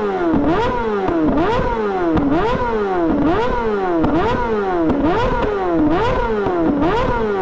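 2009 Honda CBR600RR inline-four engine being revved in quick throttle blips, about two a second. Each blip rises sharply in pitch and falls back more slowly.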